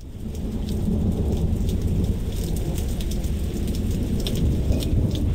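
Thunderstorm: a steady low rumble of thunder under rain, with scattered sharp ticks of drops.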